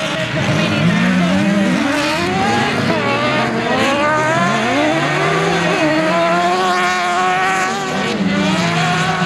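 Several autocross buggy engines racing on a dirt track at once, their pitches repeatedly climbing and dropping as they rev up and back off through the corners.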